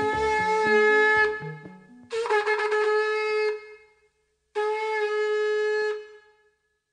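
Music: a horn-like wind instrument sounds three long held notes on the same pitch, each about a second and a half with short gaps between, over a low electronic bass line that stops about two seconds in.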